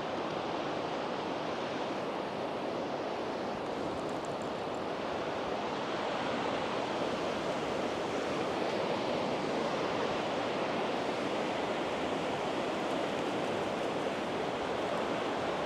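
Sea waves washing onto the beach: a steady rushing surf that swells slightly about halfway through.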